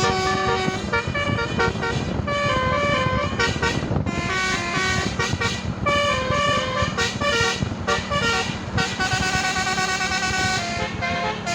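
A Basuri 'telolet' multi-tone musical horn on the Baik Rasa bus playing a quick tune note by note, with a low rumble underneath.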